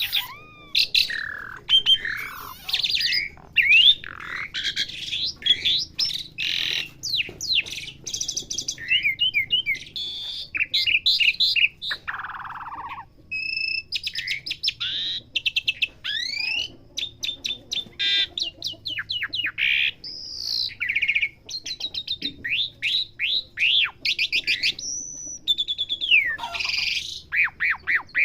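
Pied starling (jalak suren) singing continuously: a fast, varied run of whistles, rising and falling slides, rapid rattling trills and a harsh buzzy note about halfway through.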